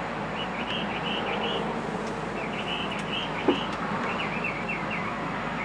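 Small birds chirping in short repeated phrases three times, over a steady background noise. A single brief low sound comes about three and a half seconds in.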